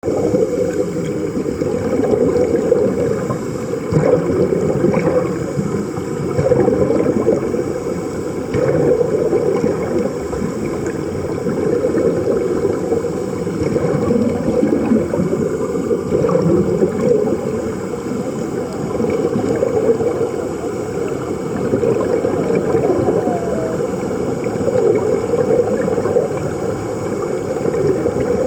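Steady rush of running water, rising and falling gently in level with no distinct events.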